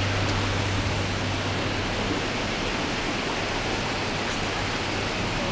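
A steady rushing noise with no distinct events; a low hum fades out about a second in.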